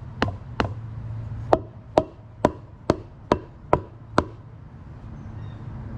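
A concrete paver slab being pounded into its bed: a steady run of sharp knocks, about two a second, that stops a little past four seconds in. The pounding is hard enough to crack the slab.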